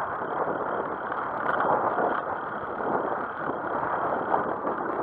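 Steady rush of wind on the microphone mixed with tyre and road noise from a bicycle riding along a paved street.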